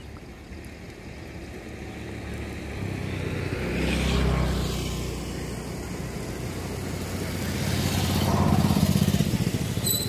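Motor vehicles passing on a road, their engine noise swelling to a peak about four seconds in and again, louder, near the end.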